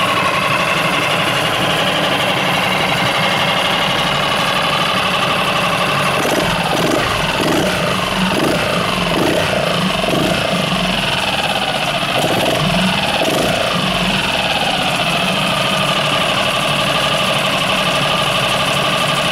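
Yamaha F5 four-stroke single-cylinder outboard motor running steadily with its cowling off, with the slightly chattering beat typical of a single cylinder. Its tone wavers up and down several times midway.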